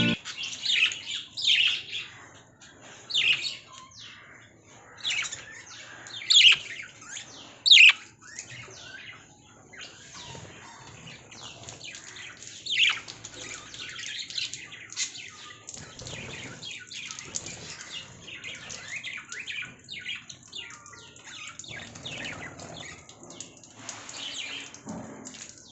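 Small pet parrots chirping and squawking in sharp, shrill calls. Several loud calls come in the first eight seconds, then a steady run of softer chatter.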